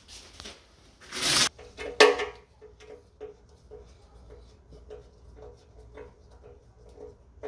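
Handling noises from assembling a treadmill: a short scraping rustle about a second in, a sharp knock just after, then light clicks at a regular pace.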